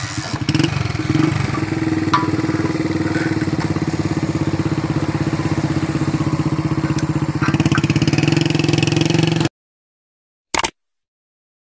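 Honda motorcycle engine idling steadily at the pump while its tank is filled. It cuts off suddenly after about nine and a half seconds, and a single short click follows.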